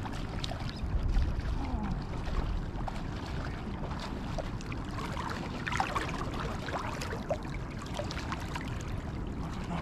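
Shallow inlet water running and lapping around wading legs, with wind rumbling on the microphone.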